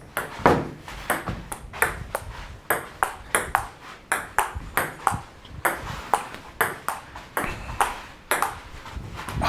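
Table tennis rally: the ball clicking sharply off the paddles and the table, about three clicks a second, often in quick pairs of bounce and hit.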